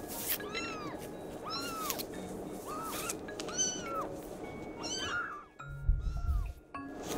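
Very young kittens mewing over and over, short thin cries that rise and fall in pitch about once a second, over background music. A low thump about six seconds in.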